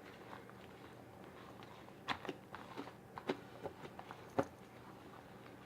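Homemade slime being mixed and folded by hand: a handful of short, soft sticky clicks and squelches, scattered from about two seconds in, over a faint room hum.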